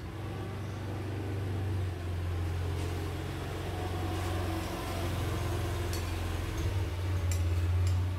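A steady low motor rumble, like an engine running, with a few light clicks in the second half.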